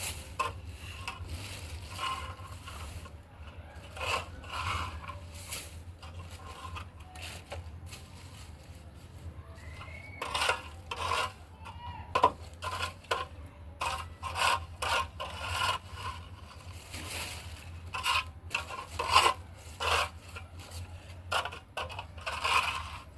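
Irregular scraping and rubbing strokes on a hard surface, typical of scraping the floor of a bird loft clean, over a faint steady low hum.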